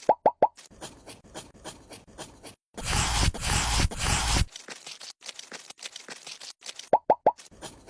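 A hand tool scraping in a burst lasting about a second and a half, among faint small clicks and taps of miniature construction work. A set of three quick falling blips comes at the start and again near the end.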